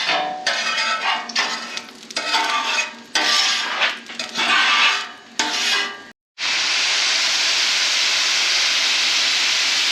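Food frying on a Blackstone flat-top griddle. A metal spatula scrapes and clatters on the griddle in short strokes for the first six seconds, then a steady, even sizzle takes over.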